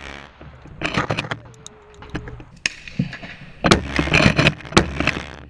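Handling noise from a shotgun with a camera mounted on it: clattering knocks, rattles and scrapes in bunches, about a second in and again from about three and a half to five seconds in.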